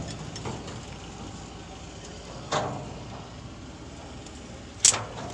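Two short knocks over a steady low hum: a lighter one about two and a half seconds in and a louder, sharper one near the end.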